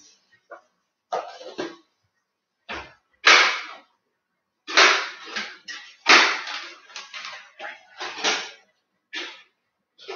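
Plastic bag rustling and crinkling in short, irregular bursts with brief pauses between, as it is handled and opened.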